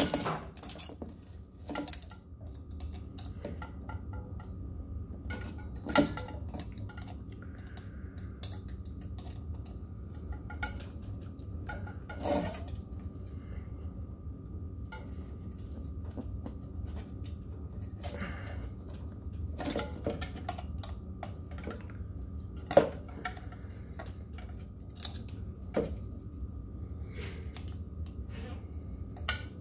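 Irregular clicks and light metallic clinks as a scooter tyre is pushed and worked by hand onto its hub-motor wheel rim, with a few sharper knocks about 6, 12 and 23 seconds in. A steady low hum runs underneath.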